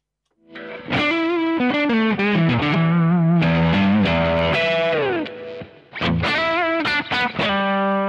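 Electric guitar through an overdrive pedal with both of its overdrive sides switched on together, giving a distorted tone. Lead lines with string bends and vibrato start about half a second in, with a short break around five seconds.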